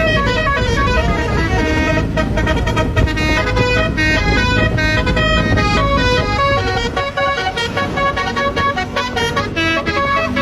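Bus telolet horn, a Basuri-type multi-tone air horn, playing a quick melody of short notes, over a low rumble that fades about seven seconds in.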